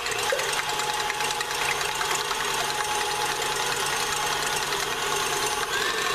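KitchenAid Classic Plus stand mixer running steadily, its wire whisk whipping egg whites in the stainless steel bowl. Near the end the speed is turned up and the motor's whine rises in pitch.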